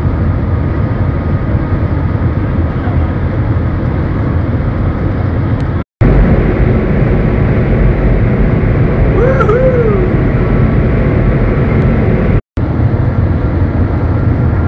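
Cabin noise inside the Shanghai Maglev train running at 380 to 425 km/h: a loud, steady noise, strongest in its deepest tones. It drops out to silence for an instant twice.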